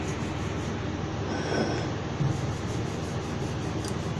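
Steady low hum and hiss of background noise, with no distinct event standing out.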